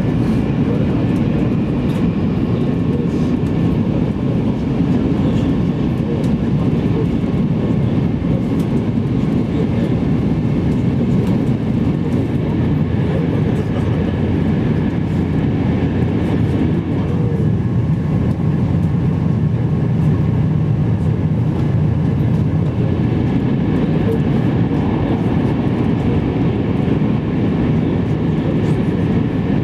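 E2-series Shinkansen train running, heard from inside the passenger cabin as a steady, even rumble.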